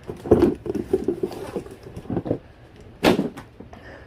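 Thumps, clatter and rustling of boxed belongings being handled and pulled out: a loud thump near the start, lighter clattering over the next second or so, another knock about two seconds in and a louder thump about three seconds in.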